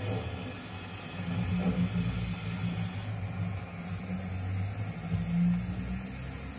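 0 gauge model passenger train running out along the track, a steady low hum from its motor and wheels that swells a little now and then. A faint high whine joins about a second in.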